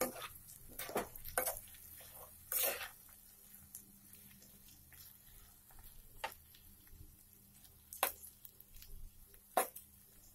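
Metal spoon stirring chunks of amla pickle in a nonstick kadai: scattered scrapes and taps of the spoon against the pan, with a longer scrape near three seconds in and the sharpest taps near the end.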